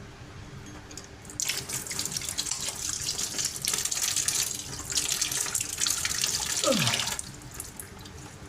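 Water tap running into a sink: the rush of water starts about a second and a half in and stops about a second before the end, with a brief tone falling steeply in pitch just before it stops.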